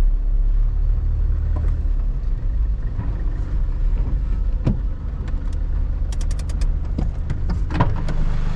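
Ute engine running at low speed, heard from inside the cab as the vehicle creeps forward. A quick run of clicks comes a little after six seconds in, and sharp knocks come near the end.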